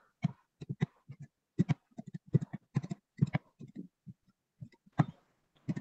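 Stylus tapping and dragging on a tablet screen while writing, picked up as a string of short, irregular dull taps, several a second.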